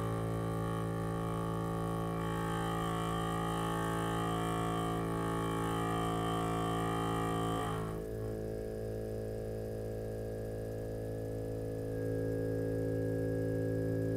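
Mechanical wave driver buzzing at the frequency generator's setting of about 55 Hz, a steady low drone with many overtones as it shakes the string into a standing wave. About 8 s in the higher overtones drop away and it goes slightly quieter, then it grows louder again near 12 s as the frequency knob is turned.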